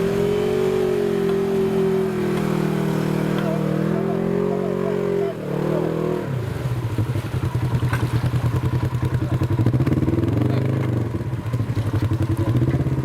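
Off-road vehicle engine held at high revs for about five seconds, then dropping sharply to a lower speed, running with an even pulsing beat and small rises and falls in revs.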